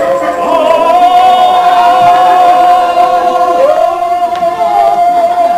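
A group of voices singing, holding long steady notes in harmony; about three and a half seconds in, the lower note slides up to join the higher one.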